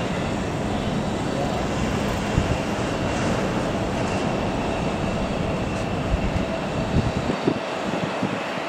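Boeing 777-300ER's GE90-115B turbofan engines on final approach: a steady rushing jet noise with a faint whine running through it. A few low thumps come in near the end.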